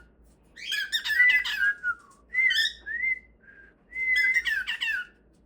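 Pet bird singing: three short phrases of rapid chirping notes and whistled glides, each about a second long, with brief pauses between them.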